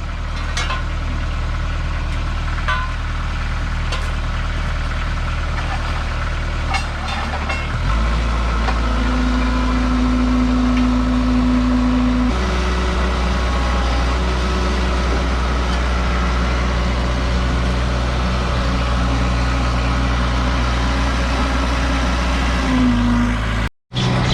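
Kymron ZX22 mini excavator's diesel engine running steadily. Its note shifts up about eight seconds in and changes again near twelve seconds, as the machine works under load. The sound cuts out for a moment near the end.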